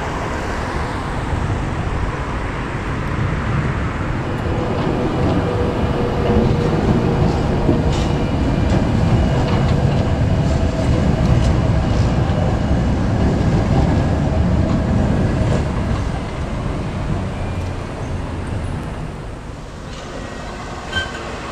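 GT8N articulated tram running on street track: a steady rolling rumble with a faint hum, and a few scattered clicks from the wheels and rails. The noise grows louder in the middle as the tram comes close, then eases off near the end.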